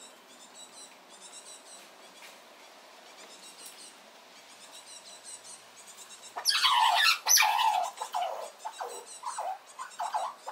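Eurasian red squirrel squealing: quiet at first, then a loud burst of high squeals about six and a half seconds in, followed by a string of shorter squeaks. This is the noise the little squirrel makes when another squirrel comes near.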